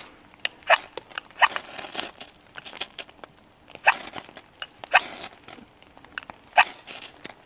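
Ferro rod struck with the spine of a knife: a series of short scrapes at irregular gaps of about a second, throwing sparks into tinder to light a fire.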